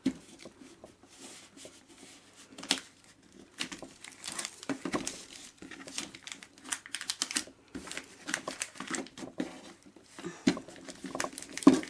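Self-adhesive plastic book-covering foil crinkling and crackling as it is handled, pulled tight and pressed around a glider wing, in many short irregular rustles.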